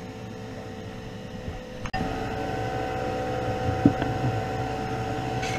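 Paint-booth exhaust fan running with a steady hum. The hum gets louder suddenly about two seconds in, and there is a single soft knock near the middle.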